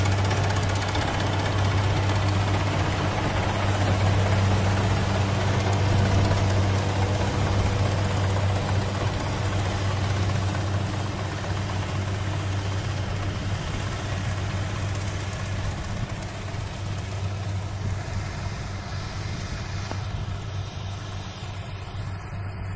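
Kubota rice combine harvester's diesel engine running steadily under load while it cuts rice, a low drone with machinery clatter, growing fainter toward the end as the machine moves off.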